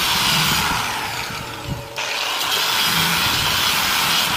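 Handheld grinder with a sanding disc running against a painted metal part, sanding the paint off to bare metal. The noise eases off about a second and a half in and comes back sharply at about two seconds.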